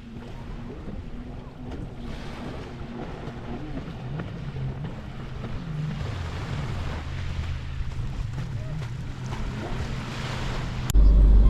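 Waves and wind at the shoreline with the low drone of a motorboat engine wavering in pitch and slowly growing louder. Music cuts in suddenly near the end.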